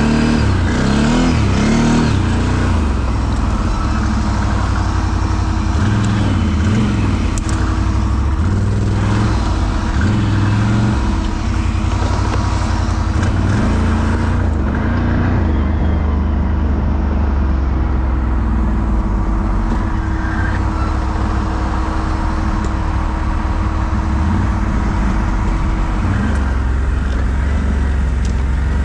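ATV engine running, its pitch rising and falling with the throttle through the first dozen seconds, then running at a steadier, lower speed.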